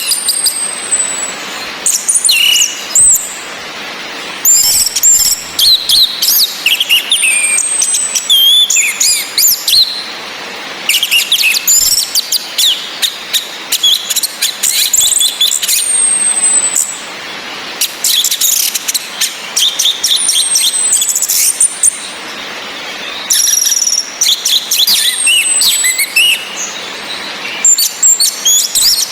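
Orange-headed thrush song: bursts of rapid, varied high phrases a few seconds long with short pauses between, mixed with high whistles that glide downward, repeated every several seconds. A steady hiss runs underneath.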